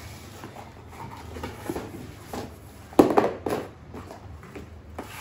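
Large cardboard shipping box being handled and opened: scattered scrapes, rustles and knocks of cardboard, the loudest a thump about three seconds in.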